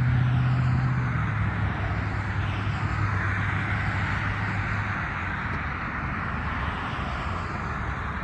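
Steady engine drone with a low hum, slowly fading away as it passes.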